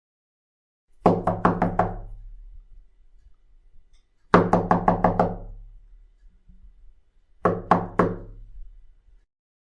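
Knocking sound effect: three runs of quick knocks, about five, then six, then three, each run trailing off in a low ringing tone.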